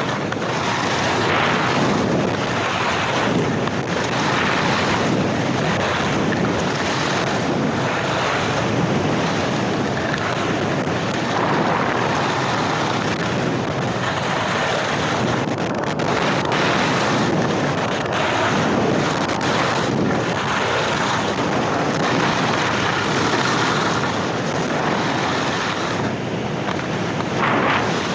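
Wind rushing over the microphone at speed, mixed with the hiss and scrape of Blizzard Anomaly 94 skis carving on groomed snow. The rush swells and eases every couple of seconds, turn after turn.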